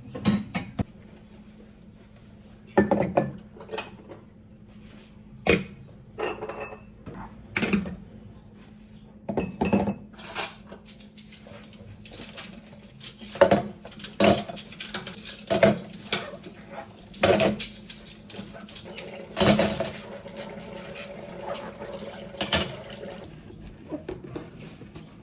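Dishes, pots and cutlery being handled, clattering and clinking in irregular knocks every second or so, over a faint steady low hum.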